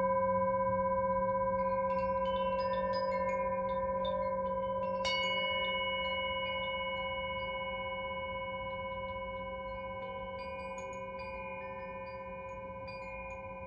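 Brass singing bowl ringing and slowly fading after a mallet strike, struck again about five seconds in. From about two seconds in, a small hand-held cylindrical chime tinkles lightly over the bowl's hum.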